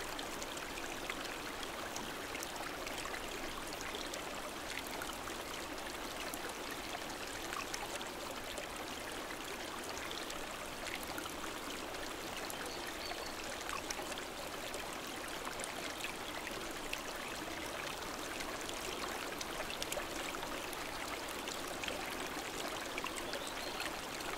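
Steady rushing of a river flowing over stones, even throughout.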